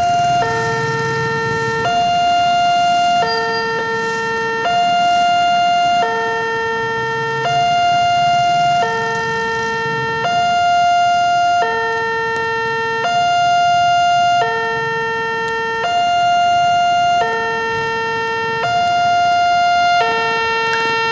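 Railroad level-crossing warning alarm sounding a steady two-tone signal, a higher and a lower tone alternating evenly about every second and a half, the signal that a train is approaching the crossing. Faint road traffic rumbles underneath.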